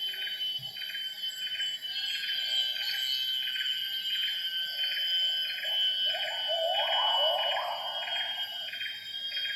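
Rainforest insects, a high steady drone over a chorus pulsing about twice a second. Beneath them a gibbon sings, its hooting notes building into a quick run of rising notes about six seconds in, part of a wild gibbon pair's morning duet.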